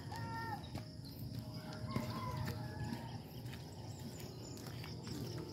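A rooster crowing twice, once near the start and again about two seconds in.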